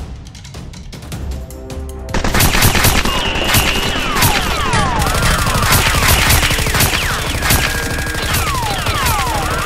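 Background music, then about two seconds in rapid gunfire sound effects take over, many quick shots in a row with short falling whistles among them.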